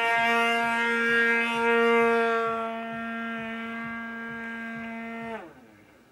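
Super Tigre G-51 two-stroke glow engine of an RC Super Chipmunk model plane running at a steady high pitch, growing quieter about halfway through. About five seconds in, its pitch falls quickly and it cuts out.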